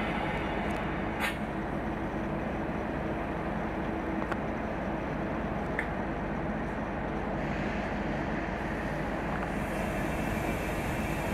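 Class 37 diesel locomotive's English Electric 12CSVT V12 engine idling with the train standing: a steady low hum that holds one pitch, with a few faint clicks.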